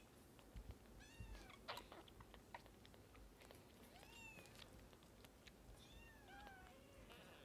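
Young kitten mewing faintly while it is bottle-fed: several short, high, thin mews, some rising then falling and one gliding down about six seconds in, with small clicks from its suckling at the bottle's teat.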